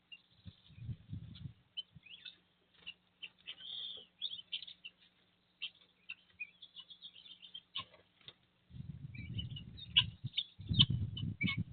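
Birds chirping, a run of many short calls and quick notes. Bursts of low rumbling noise come in about a second in and again over the last few seconds.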